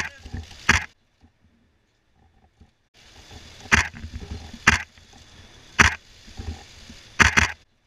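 Professional camera shutters firing single sharp clicks about a second apart, with a quick double click near the end, over a low outdoor crowd murmur; the sound drops to near silence for about two seconds about a second in.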